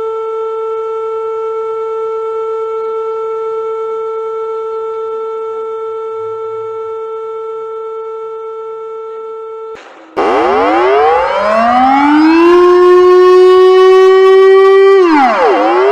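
Civil defence siren holding one steady pitch for about ten seconds. Then, abruptly, a louder siren with several overlapping tones winds up, holds, winds down near the end and starts to rise again.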